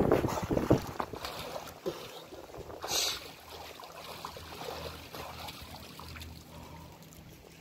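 Lake water splashing and lapping as a swimmer reaches a pier ladder and climbs out. The sound fades from the splashing at the start, with one short splash about three seconds in.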